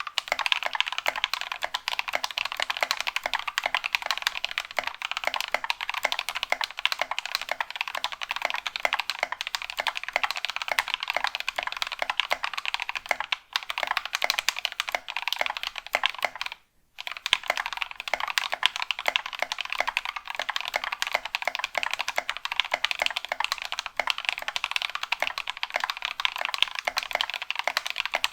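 Fast typing on a mechanical keyboard fitted with Milky Gateron Caps linear switches, cleaned of their factory lube and relubed with Krytox 205g0, springs lubed with 105g0 and filmed. A dense, steady clatter of keystrokes, with a brief pause a little past the middle.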